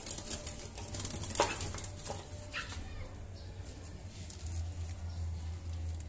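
Small trapped bird fluttering its wings against a window pane and sill, a quick rapid flapping with a sharp tap about a second and a half in, then fainter fluttering.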